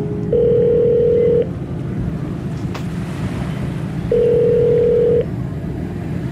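Two long, steady electronic tones of the same pitch, each lasting about a second, the second coming about four seconds after the first, over a constant low rumbling noise.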